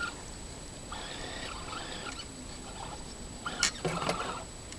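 An RC model speedboat's outboard motor whining faintly in short spurts as it is eased in to shore, with a brief clatter and a few clicks about three and a half seconds in.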